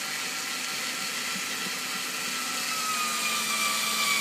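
Small cordless electric screwdriver running steadily, driving a screw through a 3D-printed TPU rubber foot into a melamine board. In the second half its motor whine slowly drops in pitch and grows louder as the screw tightens under load.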